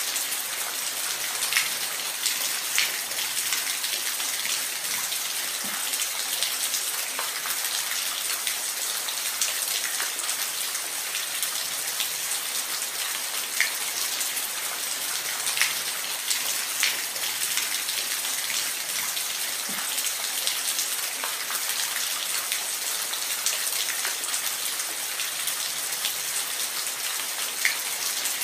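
Steady rain falling in a forest: an even hiss, with individual drops tapping sharply nearby at irregular moments.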